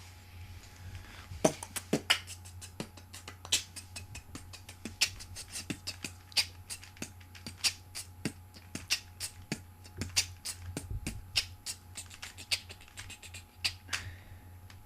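Faces of a plastic Rubik's Cube being twisted quickly by hand: an irregular run of sharp plastic clicks, several a second, starting about a second and a half in and stopping shortly before the end.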